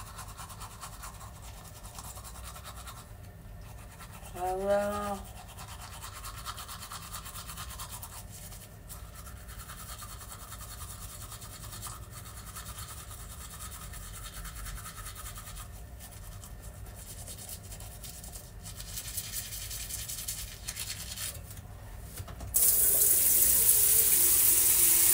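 Quiet steady scrubbing, with a short vocal sound about four and a half seconds in. About 22 seconds in, water suddenly starts running hard and keeps running, much louder than the scrubbing.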